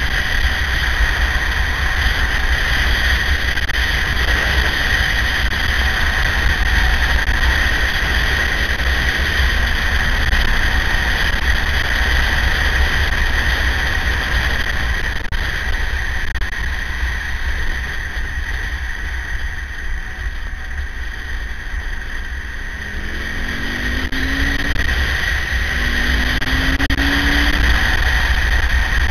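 Wind rush on the microphone of a moving KTM 950 motorcycle, with its LC8 V-twin engine running at road speed and a steady high whine. The sound eases off past the middle, then the engine note rises twice near the end as the bike accelerates again.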